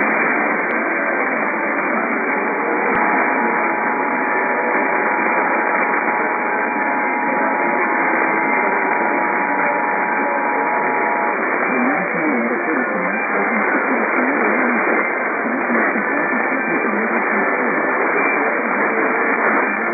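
Heavy static hiss on a weak, narrow-band radio reception. About three seconds in, after a click, the EAS two-tone attention signal (853 and 960 Hz together) sounds under the static for about eight seconds, then stops.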